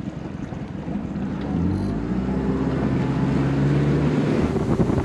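Boat motor running, its steady engine tone coming up about a second and a half in and holding, with wind buffeting the microphone.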